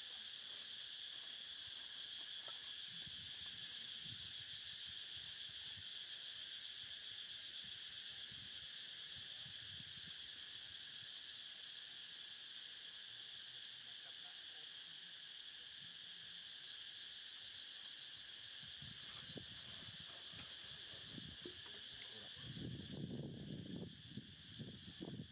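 Steady insect chorus, a faint constant high-pitched drone that holds level throughout. A few low rustling sounds come in near the end.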